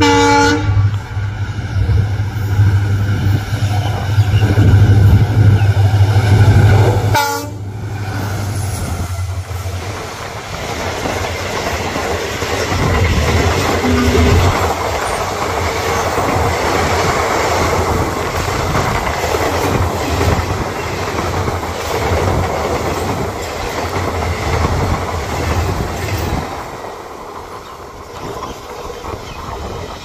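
A WDG4D diesel locomotive, an EMD-design freight engine, gives a short horn blast and then passes close by with its engine rumbling loudly. After about seven seconds its passenger coaches clatter past over the rail joints, and the clatter fades in the last few seconds as the train moves away.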